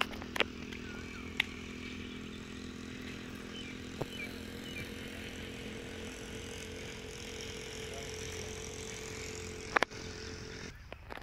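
A steady engine hum held at two low pitches, which stops shortly before the end. Several sharp knocks cut through it, the loudest about ten seconds in.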